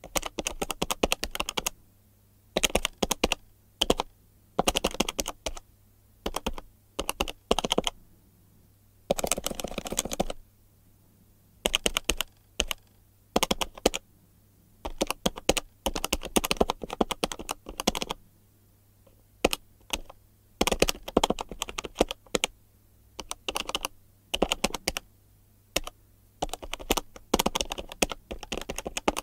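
Buttons of a handheld plastic calculator being pressed in quick runs of clicks, each run lasting a second or two, with short pauses between runs.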